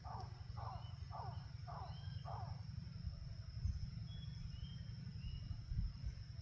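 A bird calling in a quick series of short, falling notes, about two a second, that stops about two and a half seconds in; a few faint, high, short whistles follow. A steady high-pitched insect whine and a low rumble run underneath.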